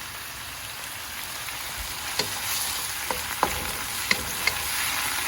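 Vegetables sizzling in oil and sauce in a pan as they are stir-fried, a steady hiss. From about two seconds in, a utensil clicks against the pan a few times as the food is stirred.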